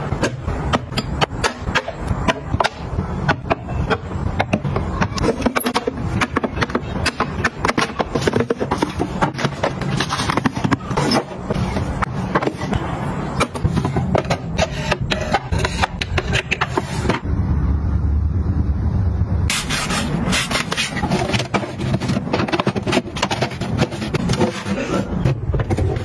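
Acrylic organiser boxes being handled: a dense run of plastic clicks, clacks and scrapes as drawers slide and pieces are set down, with a short lull about two-thirds of the way through.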